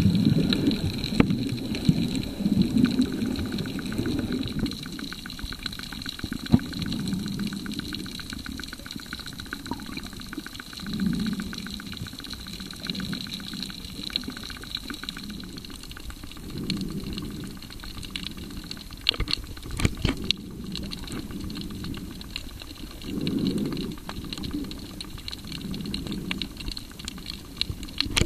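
Underwater ambience picked up by a camera held below the surface: a muffled rush of water with low swells every few seconds and a few scattered clicks.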